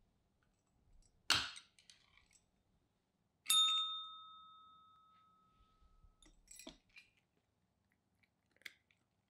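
A desk call bell with a gold dome, struck once by a cat's paw: one clear ding that rings on for about two and a half seconds. A sharp knock comes a couple of seconds before it, and smaller clicks and clatters follow.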